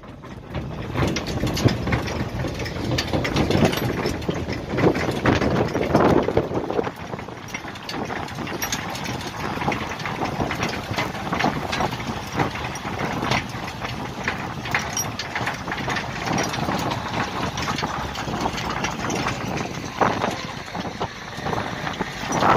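Tractor engine running steadily while towing a trailer along a road, with frequent knocks and rattles from the trailer.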